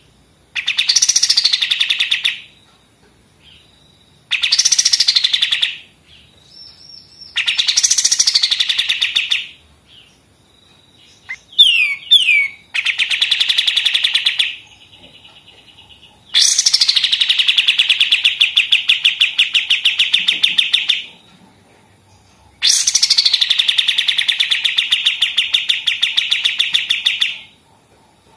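Kapas tembak songbird singing its rapid machine-gun-like rattling song: six fast, evenly pulsed trills of about two to five seconds each, each opening with a quick up-and-down sweep. About twelve seconds in there is a burst of short, quick sweeping chirps.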